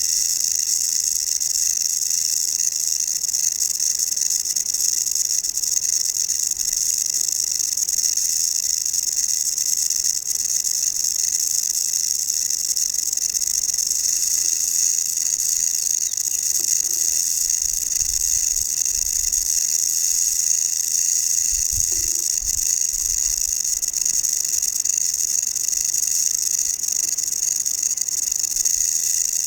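South American rattlesnake (Crotalus durissus) shaking its tail rattle in a continuous high, dry buzz that holds steady, the snake's defensive warning.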